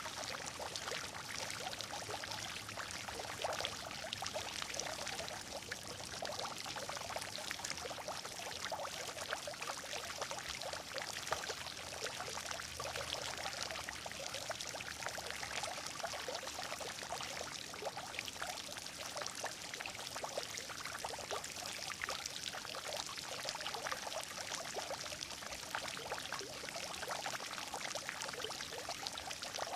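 Water gurgling and splashing in a steady, unbroken flow.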